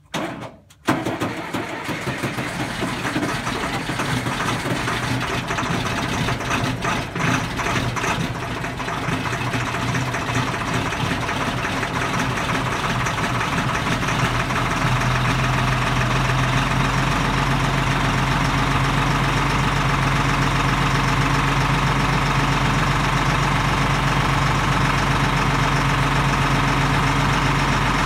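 LMTV military truck's six-cylinder diesel engine starting on a cold morning, catching within the first second and running unevenly at first. It settles into a steady idle at its proper RPM about halfway through.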